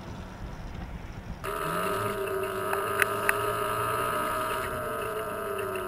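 Brammo Enertia electric motorcycle under way, heard from on board: a steady motor whine in several tones over wind and road noise. It sets in abruptly after a quiet first second and a half, and its pitch sinks slightly near the end. Two light clicks come about three seconds in.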